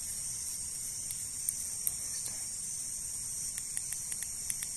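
Steady, high-pitched chorus of night insects, with a few faint clicks in the second half.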